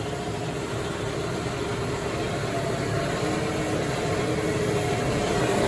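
Tractor engine running steadily under load while loading grain into a semi, getting gradually louder.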